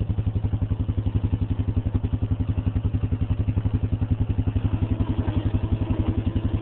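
ATV engine idling steadily, with an even, rapid pulse of about a dozen beats a second.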